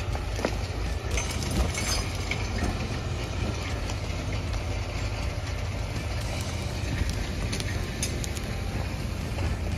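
Tractor engine running steadily at low revs, a constant low rumble with scattered light clicks and knocks over it.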